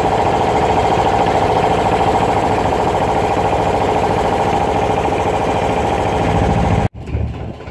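Boat engine running steadily and loudly, a fast even throb, which cuts off abruptly near the end.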